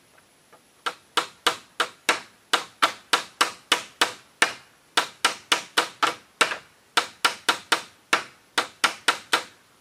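Hammer nailing split-bamboo roofing in place: quick sharp strikes, about three a second with a few short pauses, starting about a second in and stopping shortly before the end.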